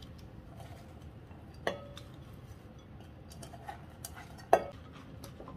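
Stainless steel bowl knocking against the rim of a glass mixing bowl as shredded cabbage is tipped in: two sharp knocks, one about a second and a half in and a louder one near the end, with soft handling sounds between.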